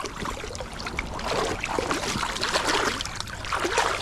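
Shallow river water splashing and trickling, with irregular small splashes.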